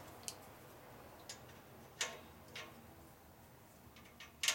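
A handful of sharp metallic clicks and taps as a Torx wrench is fitted onto and worked against the head bolts of an air-compressor pump. The loudest is a quick double click near the end.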